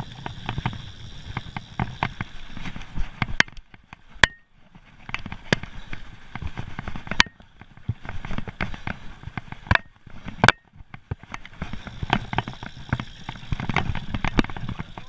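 Mountain bike running fast down a stony dirt trail: a steady clatter of sharp knocks and clicks from the tyres, chain and frame over stones and roots, with several harder cracks and two brief quieter moments.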